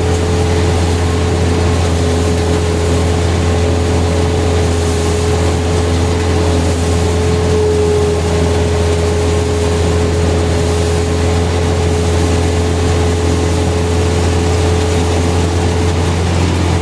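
Vehicle engine running steadily with a constant low drone and a thin, steady whine above it.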